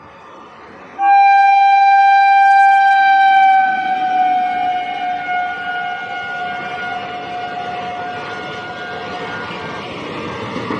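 WAP-4 electric locomotive sounding one long horn blast that starts suddenly about a second in and is loudest for the first few seconds. The horn then fades and its pitch slowly drops as the locomotive passes, while the rumble of the express's coaches rolling by grows underneath.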